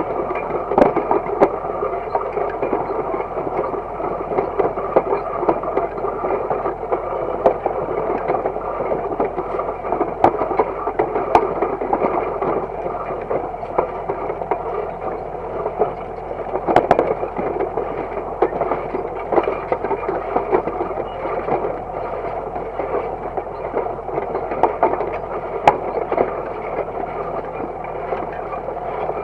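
Disc harrow behind a Universal DT445 tractor, its discs cutting through dry, cloddy soil: a steady rattling noise with frequent sharp knocks and clicks from the metal gangs and clods, and the tractor engine running faintly underneath.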